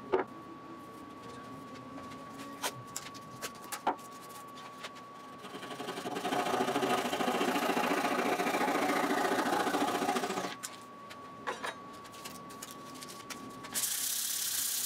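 Flush-cut hand saw trimming a glued wooden plug flush with the board, in fast short strokes for about five seconds in the middle. Near the end comes a brief hiss of sandpaper rubbing the trimmed spot smooth.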